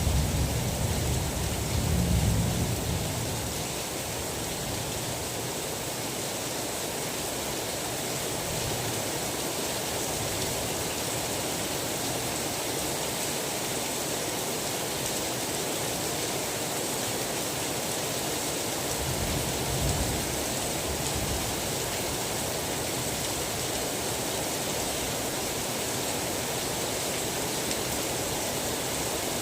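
Steady heavy rain, an even hiss. A low thunder rumble fades out over the first few seconds, and another rolls in briefly about twenty seconds in.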